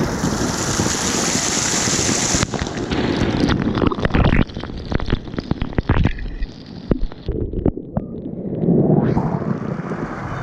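Water rushing and wind buffeting the microphone. A bright hiss for the first couple of seconds gives way abruptly to muffled rumbling with many sharp knocks and splashes, which fades and then swells again near the end.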